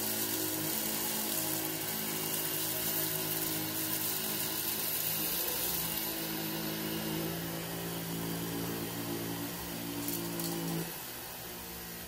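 Dyson V15 Detect cordless stick vacuum running at high suction with its brush-bar cleaner head, pushed forward and back across a rug: a steady motor whine whose tones shift about halfway through. It drops away shortly before the end.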